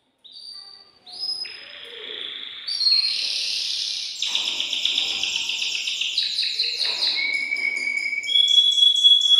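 Excited male domestic canary singing a continuous song: fast rolling trills, then long steady high whistled notes near the end.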